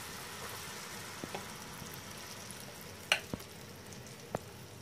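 Handvo batter sizzling as it is poured into hot oil tempered with mustard, cumin and sesame seeds: a steady frying hiss. A few sharp clicks come from about three seconds in, as the batter is spread in the pan with a spoon.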